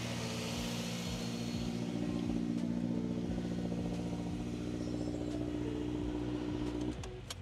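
Subaru Crosstrek's flat-four engine idling steadily. It shuts off about seven seconds in, followed by a sharp click.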